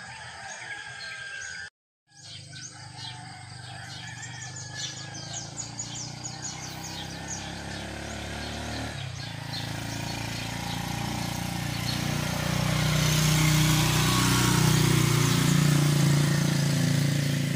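Small birds chirping in quick, repeated high notes, then a low engine drone that builds over several seconds, is loudest in the later part, and eases off near the end.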